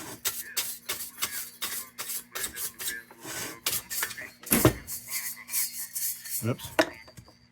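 Rapid, irregular scraping and rubbing strokes on the kerosene heater's metal as caked dirt and debris are worked loose, with two dull knocks, one about four and a half seconds in and one near the end.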